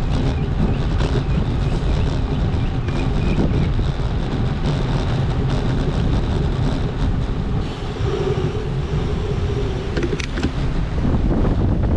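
Street traffic and a steady wind rumble heard from a moving bicycle.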